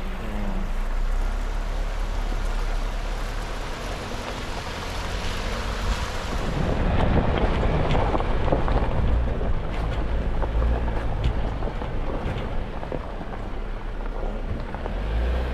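Jeep driving on a rough dirt backroad: a steady rumble of engine and tyres with wind buffeting the microphone, louder and heavier from about halfway through.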